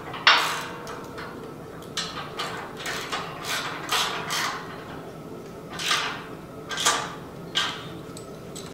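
Socket ratchet wrench clicking in a series of short back-and-forth strokes as it tightens the long pivot bolt of a rear bumper's tire-carrier hinge.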